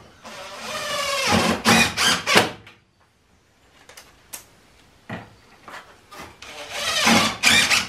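A DeWalt cordless driver runs twice, driving screws through a corrugated galvanized steel roof panel. Each time the motor whirs up in pitch for about two seconds and ends in a few sharp knocks.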